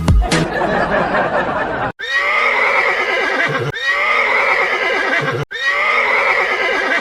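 An animal-call sound effect, the same clip played three times back to back with abrupt cuts between, after a noisier stretch in the first two seconds.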